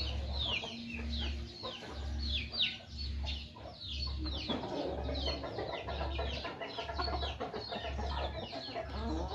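A flock of chickens: young chicks peeping steadily in many short, falling high-pitched cheeps, with hens clucking lower down. A low throb comes about once a second underneath.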